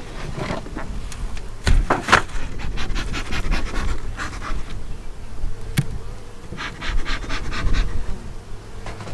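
Honeybees buzzing steadily around an opened hive, with a few sharp knocks as the hive covers are handled and two short runs of puffs from a bellows bee smoker.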